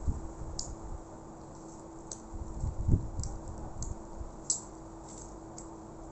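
A person eating: scattered small clicks and smacks of chewing and a spoon at the mouth, with a couple of low thumps from handling, over a steady low hum.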